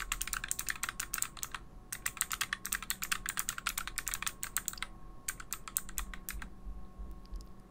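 Typing on a Keychron K3 Retro, a slim low-profile mechanical keyboard with blue (clicky) switches: fast runs of crisp key clicks with two brief pauses, stopping about a second before the end.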